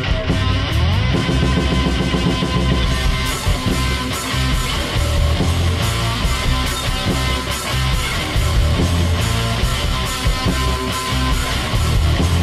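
Rock music with electric guitar and a steady, driving beat, laid over the video.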